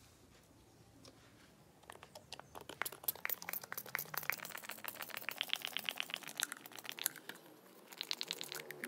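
Rapid crackling and clicking from a plastic soft-drink bottle with a pump-spray nozzle being handled and worked. It starts about two seconds in, eases off near the end, then returns in a short burst.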